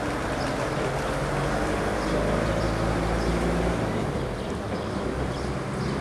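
Street ambience: a nearby vehicle engine idling as a steady low hum, under a constant hiss of traffic and wind.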